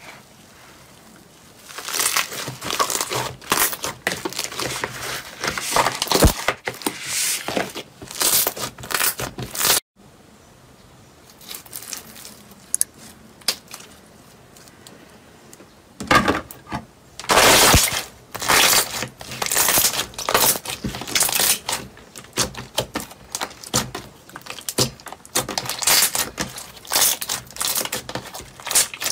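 Slime being stretched, squeezed and pressed by hand: irregular runs of crackling and squishing as it pulls apart and folds, with a quieter spell near the middle.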